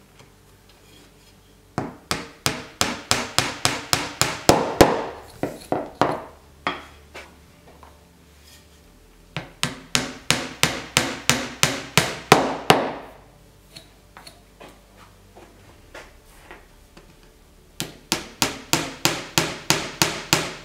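A small hammer tapping 10 mm fluted wooden dowels down into holes in a flat construction board. There are three runs of quick, sharp taps, about three or four a second, each run a few seconds long.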